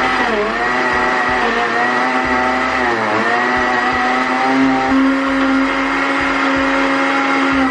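Vidiem mixer-grinder motor running a second time with orange chunks in the juicer jar, after the first run left them poorly ground. Its pitch dips briefly twice in the first half as the load catches the blades, then holds steady.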